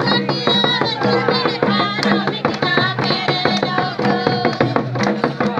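Santali folk dance music: fast, steady drumming with a high, wavering melody over a low, steady tone.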